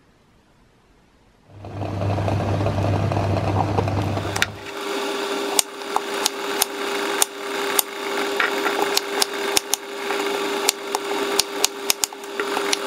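Chef's knife cutting peeled potatoes on a wooden cutting board: sharp knocks of the blade hitting the board, one or two a second and quickening toward the end. Under them runs a steady machine hum, which starts about a second and a half in after near silence.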